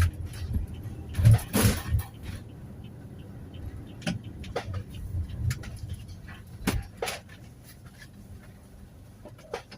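Toyota Hiace Commuter van on the move: a steady low engine and road rumble with sharp knocks and clicks, loudest in a cluster about one to two seconds in and scattered after that. The rumble eases off in the last few seconds.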